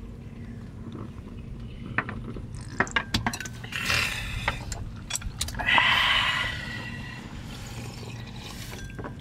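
Glasses and dishes clinking in a series of sharp clicks, then about a second of liquid being poured, over a steady low background rumble.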